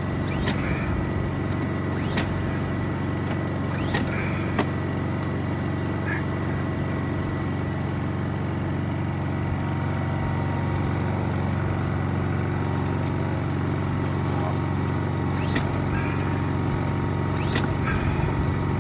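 Small Honda portable inverter generator engine running at a steady, even speed. A handful of sharp clicks and knocks from handling the unit and its gas fittings sound over it.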